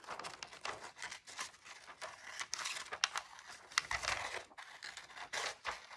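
Scissors snipping through a sheet of paper in a run of short, irregular cuts, with the paper rustling as it is turned.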